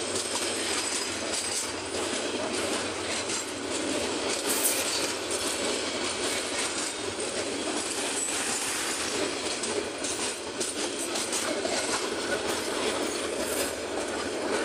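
Bangladesh Railway intercity passenger coaches rolling past close by: a steady rumble and rattle of wheels on the rails, dotted with many small clicks.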